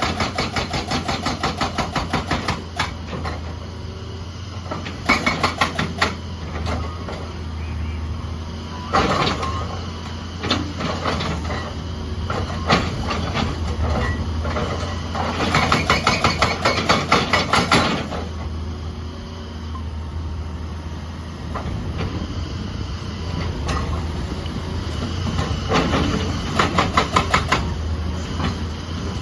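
Excavator-mounted hydraulic breaker hammer pounding in several bursts of rapid, evenly spaced blows, each burst lasting one to three seconds with pauses between, over the steady drone of the excavator's engine.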